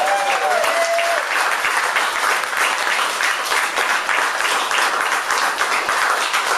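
Audience applauding steadily, with a voice calling out over the clapping in the first second.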